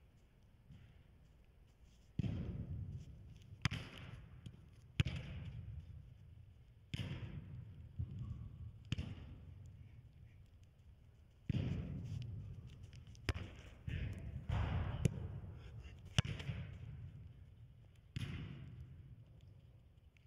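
A football (soccer ball) struck and received again and again on artificial turf, about eleven sharp thuds a second or two apart, each ringing on in the echo of a large indoor hall.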